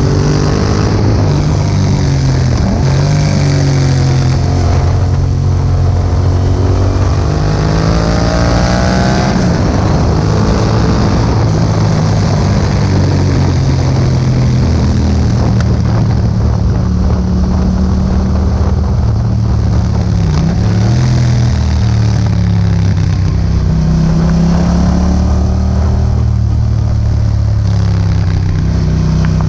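Yamaha MT-07's parallel-twin engine running through an Akrapovic exhaust while riding, its note climbing as the bike accelerates early on and again near the end, and dropping back in between.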